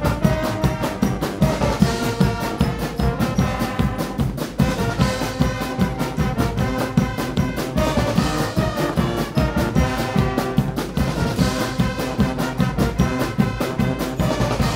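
Guggenmusik brass band playing: trumpets, trombones and sousaphones over a steady beat of drums and cymbals.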